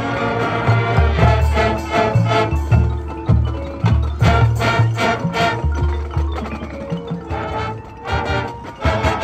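High school marching band playing its field show, with the front ensemble's marimbas and xylophones prominent over repeated low notes. The music eases briefly near the end before picking up again.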